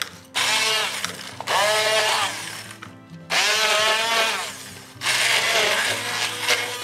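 Stick (immersion) blender chopping basil, pine nuts and garlic in its plastic beaker for pesto, run in four short bursts of a second or so each, the motor's whine rising and dipping within each burst as the blade bites into the leaves. Soft background music underneath.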